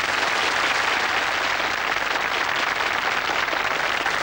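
Audience applauding steadily at the end of a song.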